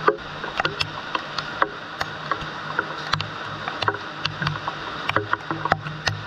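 Rain falling, with irregular sharp drips and taps close by, several a second, over a steady low hum.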